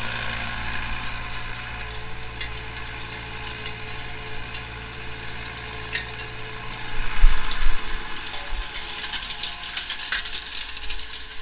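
Pronar 82SA tractor's diesel engine running under way as it pulls a cultivator through tilled soil, with metallic rattling and scattered sharp clicks. A few loud low thumps come about seven seconds in.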